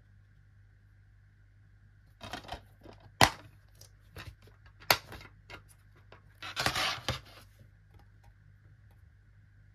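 Plastic DVD keep case being handled and snapped open with a sharp click. Then come more clicks and a short rattle as the disc is pried off the case's centre hub.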